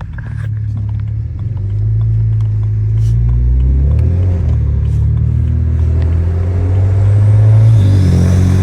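BMW N54 twin-turbo straight-six running, a steady low drone that grows louder over the first couple of seconds and again near the end.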